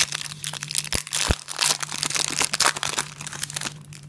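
Foil trading-card packet being torn open and crinkled by hand: a dense crackling rustle with a couple of sharper snaps about a second in, easing off near the end.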